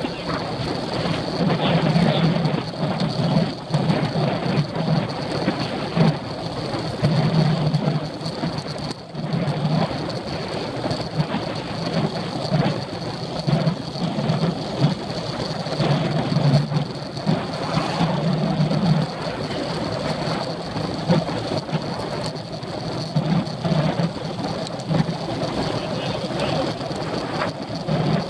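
Wind rushing over the microphone of a handlebar-mounted camera on a road bike in motion, with tyre and road rumble from the asphalt: a steady, loud rush that buffets unevenly.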